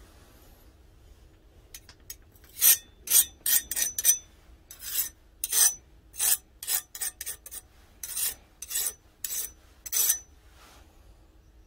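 A small steel file scraped repeatedly across the edge of a forged steel knife blade: a run of short, high scrapes, about two a second, starting about two seconds in.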